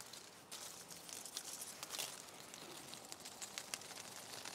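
Faint crackling rustle of leaves and twigs in a forest field recording, with many small scattered clicks.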